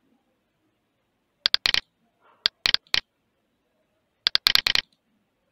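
Computer mouse clicking in three short clusters of rapid clicks, about a second and a half, two and a half, and four and a half seconds in.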